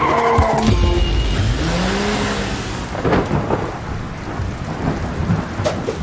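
Cartoon sound effect of a tracked robot vehicle driving through snow: a steady rumbling rush of noise, with a short tone that rises and falls about a second in.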